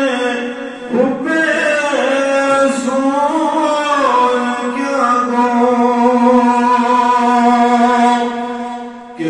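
A man's solo voice chanting slowly and melodically with no instruments, drawing out long held notes. A long steady note in the second half fades away near the end.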